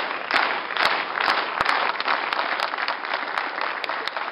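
Audience applauding. Louder pulses come about twice a second for the first second or so, then the clapping evens out and slowly dies down.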